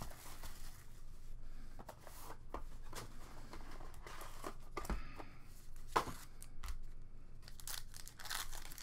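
Plastic wrapping on a trading-card box crinkling and tearing, then a foil card pack being pulled out and torn open: irregular rustles and small sharp clicks, with a sharper snap about six seconds in.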